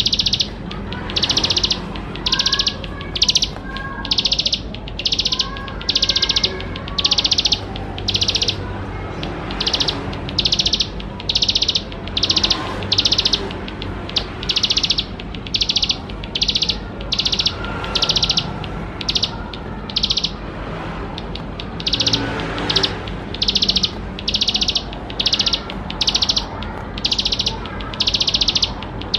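Ciblek sawah, a prinia, singing: a rapid, high, buzzy trill about half a second long, repeated roughly once a second with short gaps. Fainter, lower chirps join in during the first several seconds, over a steady low hum.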